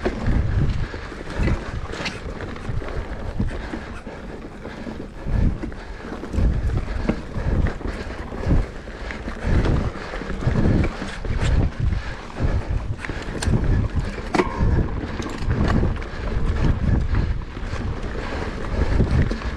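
Wind buffeting the microphone in uneven gusts aboard a sailboat under way.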